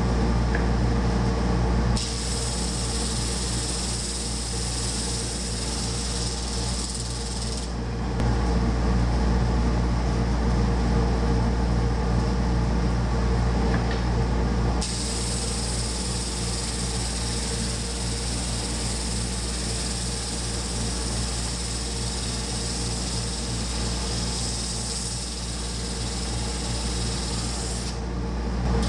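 Shop-built drum sander running steadily, its 1/3 HP motor turning a 5-inch sandpaper drum at about 1100 RPM, with a dust collector drawing through its hood: a steady hum. Twice a board passes under the drum and the sandpaper adds a hiss, first for about six seconds starting two seconds in, then again from about halfway until near the end.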